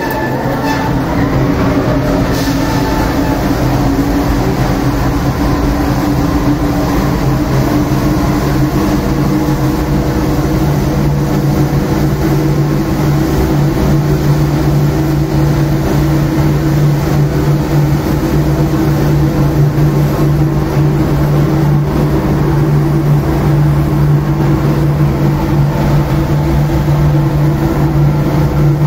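A 120 kg industrial coffee roaster running with a loud, steady machine hum. Roasted beans rush and rattle as they pour from the drum into the cooling tray and are turned over by its rotating stirring arms.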